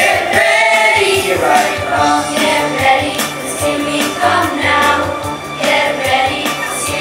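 Children's choir singing into microphones through a PA, over an accompaniment with steady bass notes and a regular beat.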